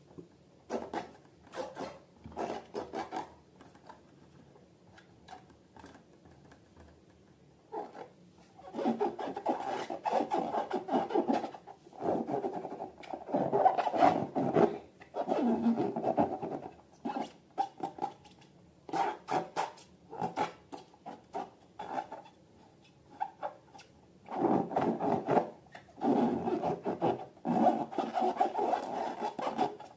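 Hands rubbing and squeezing rubber balloons and slime in irregular bursts of close-up rubbing and squishing, sparse at first and then nearly continuous after about eight seconds.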